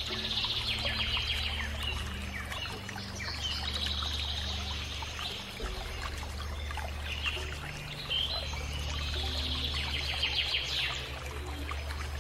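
Background soundtrack of low held notes that change pitch every few seconds, with stretches of fast, high chirping trills over them.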